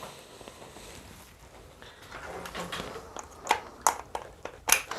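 Quiet room tone with a few short, light clicks and knocks, typical of parts and packaging being handled, three or four of them in the second half.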